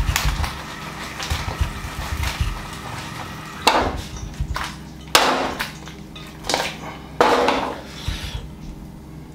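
A metal wok of sauced chicken wings being tossed over a gas burner: a hissing sizzle with low knocks of the pan on the grate for the first few seconds, then four or five sharp metallic clanks of the wok and utensils.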